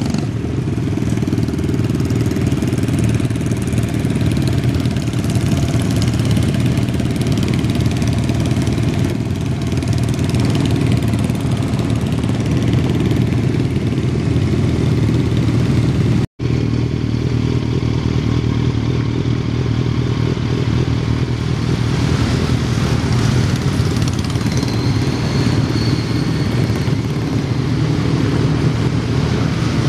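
A group of motorcycle engines running together, idling and pulling away as the bikes ride past, with a brief cut to silence about halfway through.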